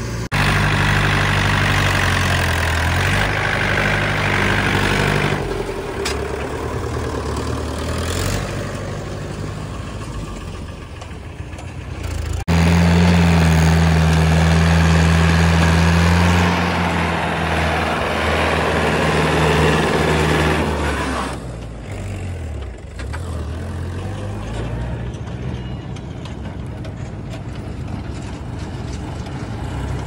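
Diesel engines running steadily, in three stretches split by sudden cuts. First the JCB 3DX backhoe loader and tractors run at the loading spot. From about 12 seconds in, a Mahindra 475 DI tractor's engine runs louder as it pulls a loaded trolley. From about 22 seconds in, a tractor hauls a loaded trolley along a dirt track.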